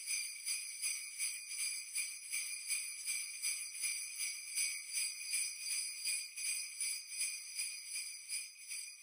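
Sleigh bells shaken in a steady rhythm, about two or three jingles a second.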